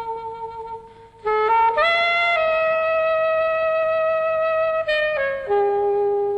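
Background music: a wind instrument playing long held notes. About a second and a half in it slides up into a note held for about three seconds, then drops to a lower note near the end.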